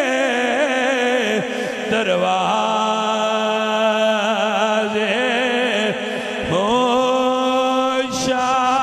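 A man's devotional chant sung into a microphone: a single male voice winding through wavering ornaments, then holding long steady notes, with a short break and a fresh held note near the end.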